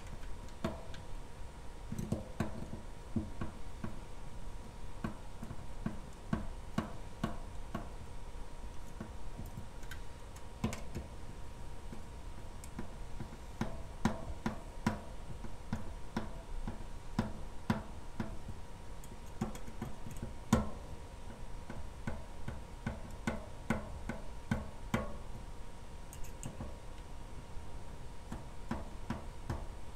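Frame screws being tightened around the stretched FEP film of a Sainsmart Kumitsu KL9 resin printer vat: an irregular string of small clicks and taps from the tool on the screws. Each tap sets the taut film ringing briefly like a drum skin, a sign that the film is tensioned well.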